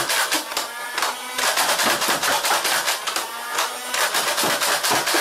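Nerf Hail-Fire blaster's electric flywheels running while foam darts are fired in fast strings of sharp clicks. There are short breaks about a second and a half in and about four seconds in, as the next magazine is rotated over the barrel.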